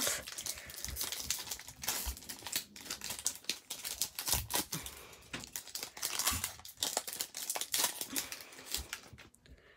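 Wrapper of a Topps baseball card pack crinkling and tearing as it is handled and pulled open, in a rapid crackle of small sharp sounds.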